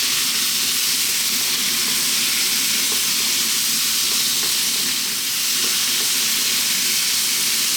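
Chicken and vegetable stir-fry sizzling in a very hot wok on maximum heat: a steady, loud frying hiss.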